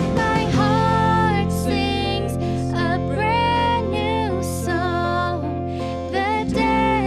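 Worship music from a praise band: acoustic guitar under a slow, held melody line, with sustained bass notes that change about six and a half seconds in.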